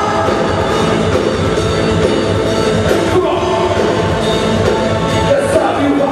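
A live band playing on stage, with a singer's voice over the instruments, loud and continuous.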